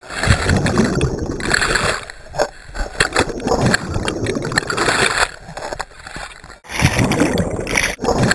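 Churning, splashing water recorded up close, surging unevenly, with abrupt cuts between clips about two-thirds of the way through and again near the end.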